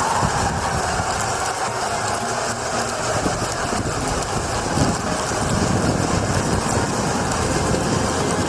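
Snow avalanche pouring down a mountainside: a steady, loud rushing roar.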